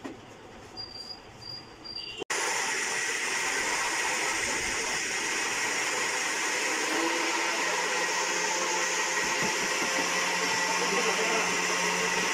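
Small electric blender motor switching on about two seconds in and running steadily with a whine, blending watermelon chunks into juice, then stopping near the end.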